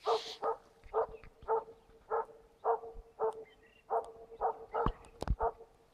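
A moose-hunting dog bay-barking at a moose it is holding in place, about 150 m off: about eleven evenly spaced barks, roughly two a second. Two sharp knocks come near the end.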